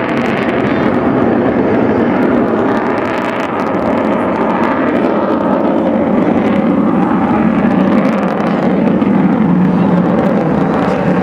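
Avro Vulcan XH558's four Rolls-Royce Olympus turbojets: a loud, steady jet noise as the delta-wing bomber flies past overhead.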